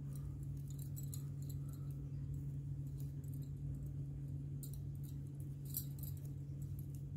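Faint, scattered clicks and light scraping of knitting needles and wool as stitches are worked by hand, over a steady low hum.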